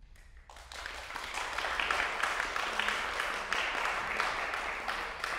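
Audience applause, breaking out about half a second in as the last piano notes of the song fade.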